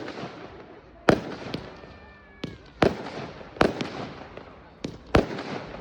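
Fireworks going off: about seven sharp bangs at uneven intervals, each trailing off into an echoing rumble. A faint whistle, dipping slightly in pitch, sounds about two seconds in.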